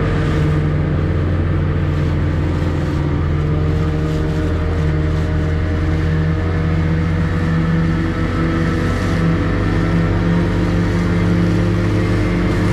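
A small fishing boat's motor running steadily under way, with water rushing along the hull.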